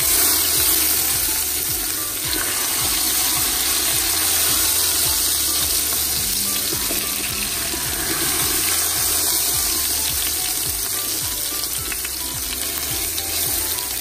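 A marinated beef roast searing in hot oil in a pan, sizzling steadily while it is moved and turned with tongs to brown.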